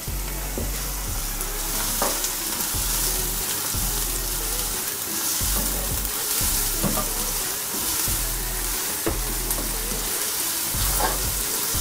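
Chopped onions sizzling in hot oil in a non-stick wok, just starting to soften, with a spatula stirring and scraping them across the pan at irregular intervals.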